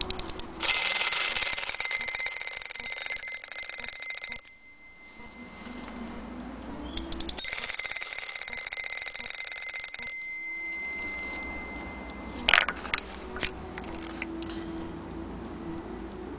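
Small brass bell on a vintage Hermle clock movement rung by its hammer in rapid repeated strokes, alarm-style, in two runs of about three seconds each, the ring hanging on and fading after each run stops. A few sharp clicks from the movement follow near the end.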